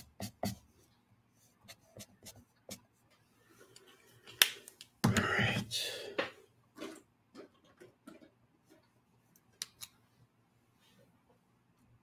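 Art marker stroking quickly across drawing paper, stopping within the first half second. Faint scattered taps follow, then a sharp click about four seconds in and about a second of louder noise.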